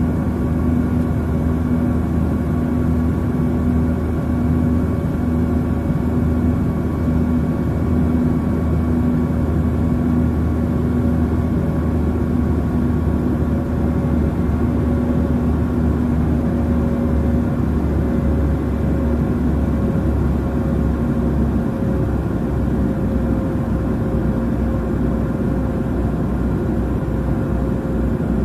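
Jet airliner cabin noise: a steady drone of engines and rushing air, with a constant low hum running through it.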